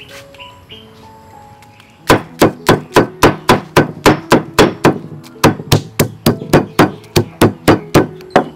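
Steady chopping on a cutting board, about three loud blows a second, starting about two seconds in, over faint background music.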